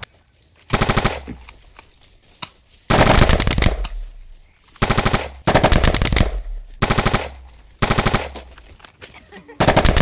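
Automatic gunfire in a series of short bursts of rapid shots, about seven, the longest lasting about a second, with short pauses between.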